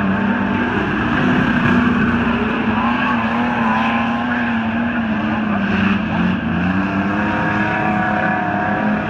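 Several streetstock race car engines running hard in a race, their pitch rising and falling as the cars lap the track.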